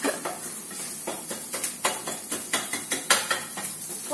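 Utensil scraping and tapping irregularly against a stainless-steel frying pan as food is stirred, over a steady sizzle of frying.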